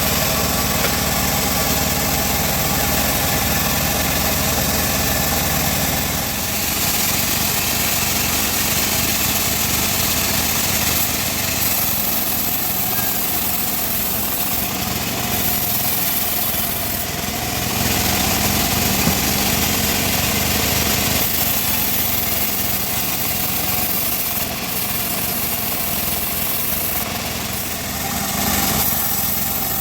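Band saw cutting wood: a continuous mechanical drone with a high hiss, its tone changing every few seconds.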